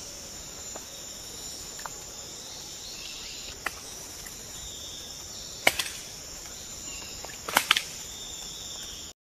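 AI-generated forest ambience from FineVoice's video-to-audio tool: a steady high chirring of insects with a few sharp clicks, the loudest a little past halfway and a pair of them later on.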